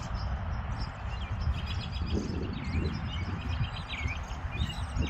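Small birds chirping in quick runs of short calls over a steady low rumble.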